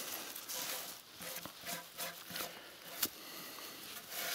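Rustling of dry leaf litter and grass as an old shed antler is gripped and turned over on the forest floor, with short scrapes and one sharp knock about three seconds in.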